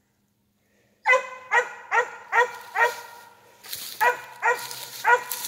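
Squirrel dog tree-barking at a treed squirrel: after about a second of silence, a run of sharp, evenly paced barks, about two a second, each dropping in pitch. Partway through there is a short break filled by a brief burst of noise before the barking picks up again.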